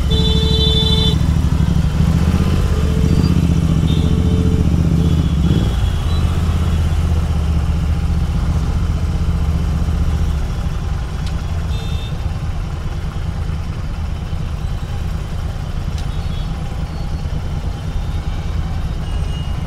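Royal Enfield Continental GT 650's parallel-twin engine idling at a standstill in heavy traffic, its low note easing off about ten seconds in, with the surrounding motorcycles and cars idling around it. A short high horn-like tone sounds near the start.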